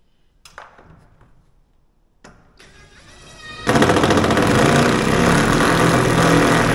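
Cordless impact driver driving a fastener into the wooden header above the garage door. A couple of light knocks come first, then the motor whines up in pitch, and just past the halfway point the loud, rapid hammering of the impact mechanism takes over and carries on.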